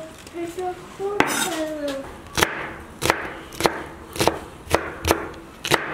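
Chef's knife chopping green chili pepper on a wooden cutting board: about seven sharp knocks of the blade against the board, roughly one every half second, starting a couple of seconds in.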